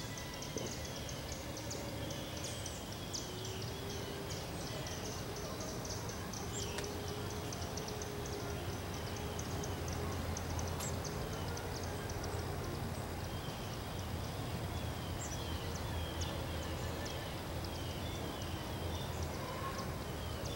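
Several birds singing: a quick, steady series of high chirps, with runs of lower chirped notes early on and again in the second half, over a steady low rumble.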